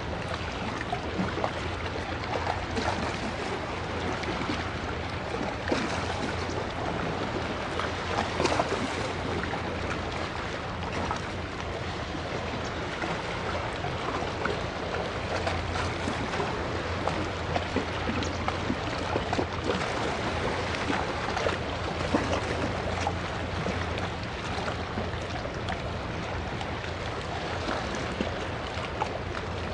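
Choppy sea water lapping and splashing close by, a steady rush dotted with small splashes, over a constant low rumble.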